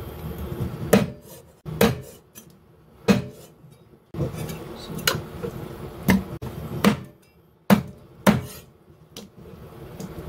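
Chinese cleaver chopping raw chicken into pieces on a wooden chopping block: about nine sharp chops at uneven intervals.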